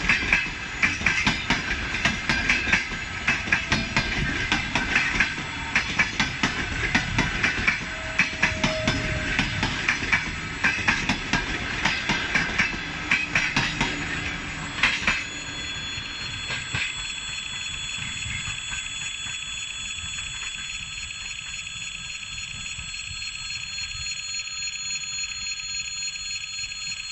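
Russian Railways passenger coaches rolling past, wheels clacking over the rail joints, until the last coach clears about halfway through. After that, a steady, high electric warning bell rings on, the crossing signal still sounding with the tracks empty.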